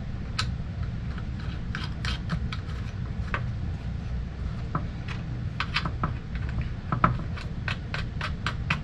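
Light, irregular clicks and ticks of metal wing nuts being spun by hand onto the collimation screws of a telescope mirror cell, over a steady low hum.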